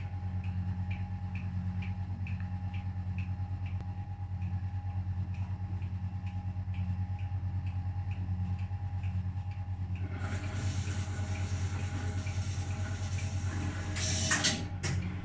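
1968 Scharpf Elektronica 2920 washing machine running a boil wash: steady motor hum with a regular light ticking rattle, about two to three a second, from its magnetic clutch and counterweight freewheel. About ten seconds in, a rushing water hiss starts, and a louder clatter comes near the end.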